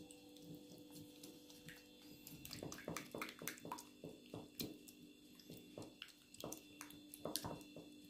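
Silicone pastry brush whisking egg yolk and milk in a small stainless steel bowl: faint quick ticks and scrapes against the metal, starting about two and a half seconds in, over a steady low hum.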